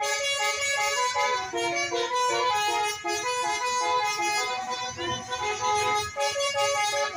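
Basuri V3 telolet musical bus horn playing a fast dance tune, the horn tones stepping quickly from note to note, and cutting off near the end.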